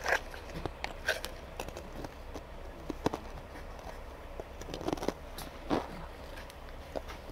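Pringles potato crisps crunched and chewed, a few scattered irregular crunches and clicks over a low steady hum.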